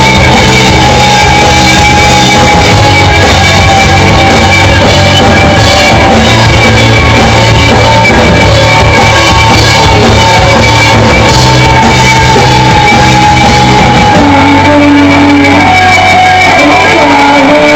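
A live rock band plays at full volume, with distorted electric guitars, a drum kit and a woman's lead vocal, recorded very loud and close.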